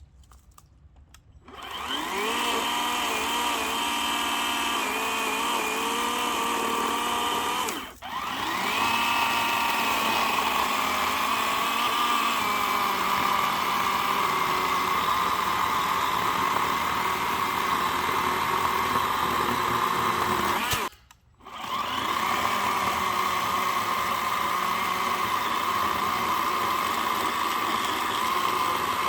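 Einhell 18-volt cordless chainsaw running with a steady electric motor and chain whine, starting up about a second and a half in. Its pitch wavers, and it dips briefly twice before running on.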